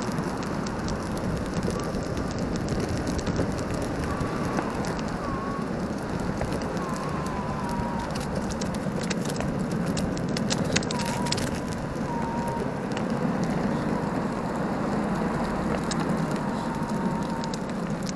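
Acton Blink Lite V2 electric skateboard rolling over rough asphalt: a steady gritty rumble of the polyurethane wheels on the road, with scattered clicks and ticks from grit and cracks, thickest about halfway through.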